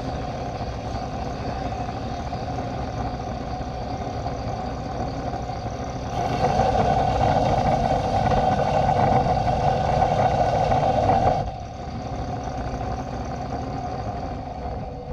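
A steady whirring shop machine running. It gets louder, with added hiss, for about five seconds in the middle, then drops back and winds down at the very end.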